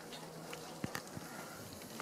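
Faint outdoor background noise with a low steady hum and a few soft clicks about a second in.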